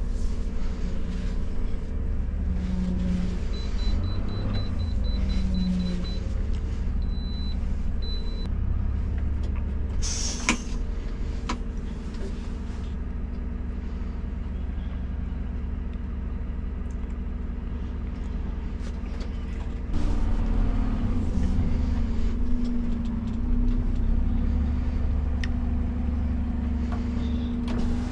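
Refuse truck's diesel engine running steadily, heard from inside the cab, with a single sharp click and short hiss about ten seconds in. About twenty seconds in, the engine gets louder, with a stronger steady hum.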